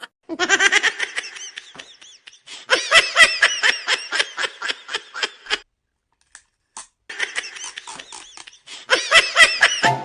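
A person laughing hard in several bouts of quick, repeated 'ha-ha' pulses, with short breaks for breath between them.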